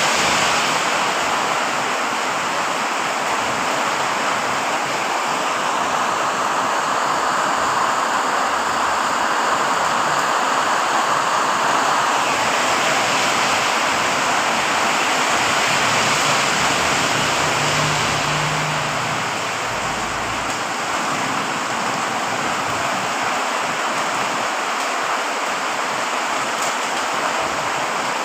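Very heavy rain pouring down steadily, a dense even hiss.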